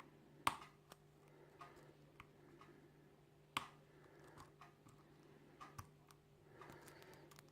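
Faint, scattered ticks and clicks of a half-diamond lock pick and tension wrench working the pin tumblers of a small aluminium padlock, with two sharper clicks about half a second and three and a half seconds in.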